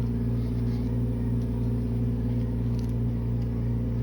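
Steady low machine hum made of several even tones, unchanging throughout, with a faint tick about three seconds in.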